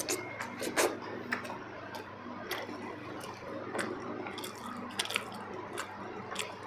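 Close-up eating sounds: a person chewing soft, wet food, with squishy mouth noises and many short smacks and clicks scattered throughout.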